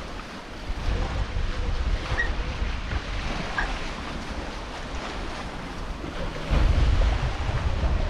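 Sea wash around a sailing catamaran under way, with wind rumbling on the microphone. The rumble swells about a second in and again, louder, from about six and a half seconds.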